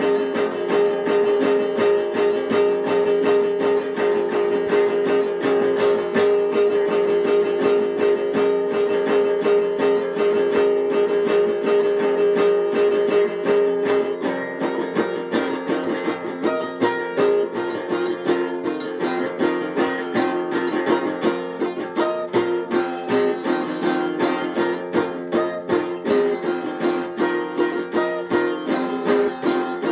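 Instrumental music on a plucked string instrument, picked in a fast steady stream of notes over a held tone. The harmony shifts about halfway through.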